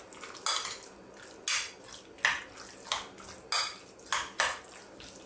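A metal spoon and fork mixing a thick tuna-mayonnaise salad in a ceramic bowl, with about seven short scrapes and clinks of metal against the bowl, one every half second to second.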